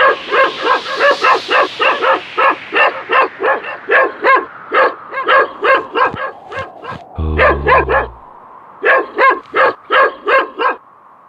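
Small sled dogs yapping in quick succession, about three short barks a second. About seven seconds in they break off for a short low rumble, then yap again until shortly before the end.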